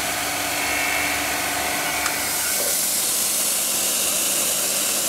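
Steady hiss of compressed air and coolant mist blowing from a fogbuster nozzle, with a small two-piston diaphragm compressor humming under it at first. About two seconds in, the hum fades and the airy hiss grows stronger.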